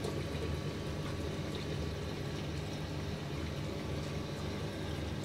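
Steady running water from a marine aquarium setup, with a constant low hum underneath.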